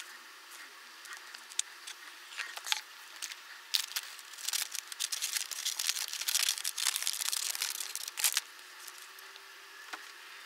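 Hands crinkling and tearing wrapping, with many small clicks and taps; the rustling is densest from about four and a half to eight and a half seconds in.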